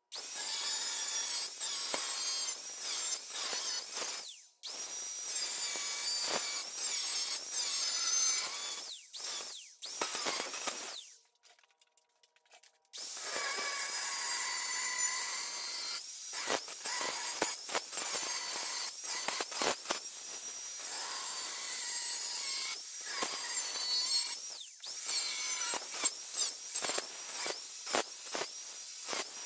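Electric angle grinder with a thin cut-off wheel cutting through a rusty steel seat pan, a high wavering whine and rasp as the wheel bites the metal. It breaks off and starts again several times, with a pause of about two seconds near the middle.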